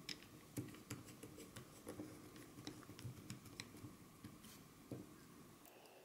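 A string of faint, irregular small clicks and ticks from a precision screwdriver driving self-tapping screws into a 3D-printed plastic case.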